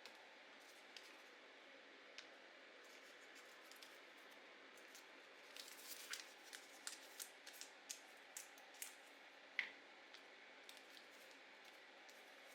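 Scissors snipping through paper in a run of short, crisp cuts, about two or three a second, with one louder snip toward the end, over a faint steady hiss.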